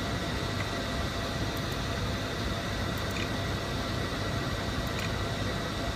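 Steady background noise, a low hum with hiss, with a few faint clicks scattered through it.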